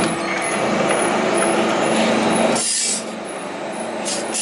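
Electric multifunctional wrought-iron forming machine running as it rolls square steel tube, with metal rubbing and scraping. Its low hum drops out about two and a half seconds in, followed by a short hiss and scraping.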